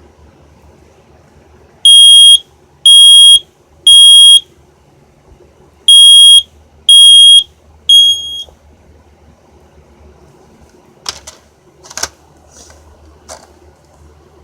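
Kidde i9010 ionization smoke alarm sounding its three-beep pattern: three loud high-pitched beeps about a second apart, a pause, then three more, the last cut short. A few sharp clicks follow.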